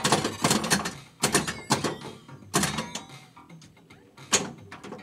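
Bally Elvira and the Party Monsters pinball machine in play: irregular sharp clacks of flippers, bumpers and the ball striking the playfield, several in the first half and one more near the end, over the game's electronic music and sound effects.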